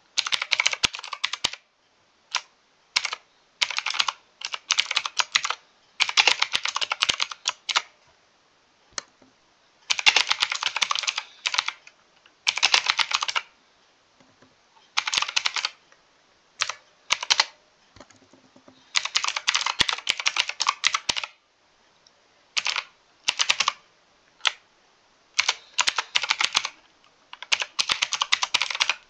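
Typing on a mechanical keyboard: quick runs of keystrokes in bursts of up to about two seconds, broken by short pauses.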